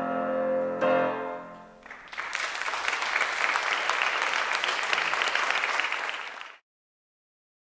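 Music with sustained piano chords ends on a last struck chord about a second in. Then applause of many hands clapping runs for about four seconds and cuts off suddenly.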